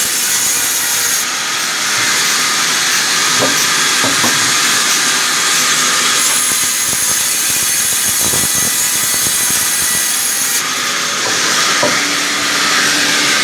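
A sawmill saw cutting through timber: a loud, steady hiss with a few faint knocks.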